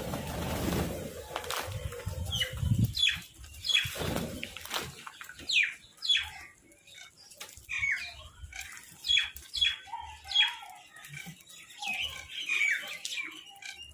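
Birds calling with many short, quick squawks that drop in pitch, one after another. Wing flapping and rustling fill the first few seconds.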